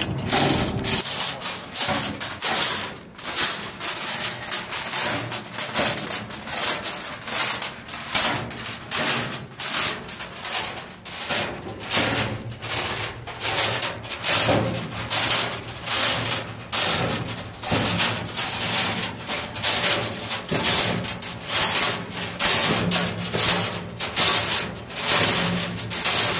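Manual chain block being worked to lower a transformer: its chain rattling and clicking through the hoist in a steady rhythm of about two strokes a second. A low steady hum sits underneath from about halfway.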